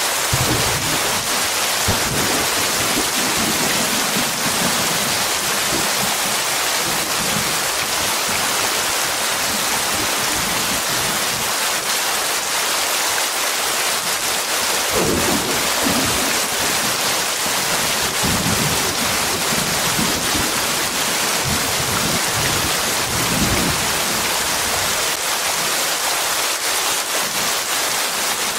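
Heavy rain falling steadily in a storm, with low rumbles of thunder coming and going, the strongest about halfway through.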